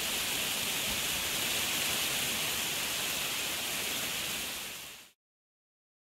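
Steady rain falling, an even hiss that fades out about five seconds in.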